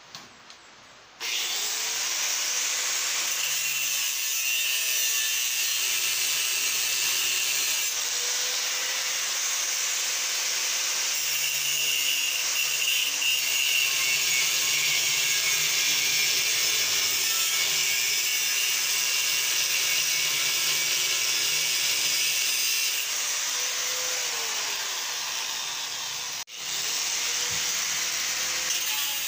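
Angle grinder running with its disc against a steel angle-bar frame, grinding the metal in one long, steady pass. It starts about a second in, breaks off briefly near the end and comes back.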